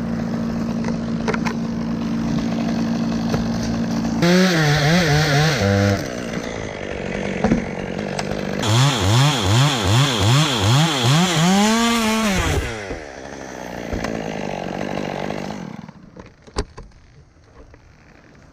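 Chainsaw running: steady at first, then revved in repeated rising and falling surges through two stretches, before it stops near the end.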